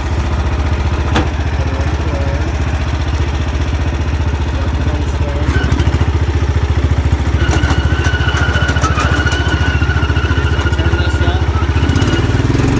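Yard Machines lawn tractor's 420cc engine with stock exhaust, just started and running steadily. A thin high squeal joins in about halfway through and stops shortly before the end.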